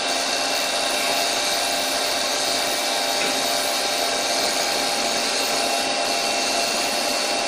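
Doosan CNC lathe running steadily with its spindle turning: an even machine hiss and hum with a few fixed tones and no cutting strikes.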